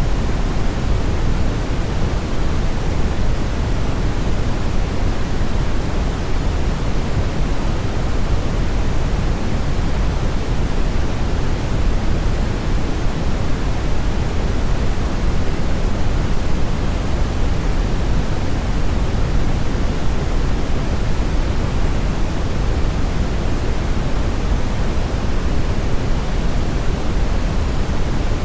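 Steady, even rushing noise, heaviest in the low end, with no change in level or character throughout.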